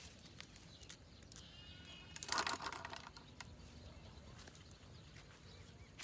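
Plastic basket bird trap falling over a feeding dove about two seconds in: a short loud clatter that dies away within about half a second, with faint clicks before it.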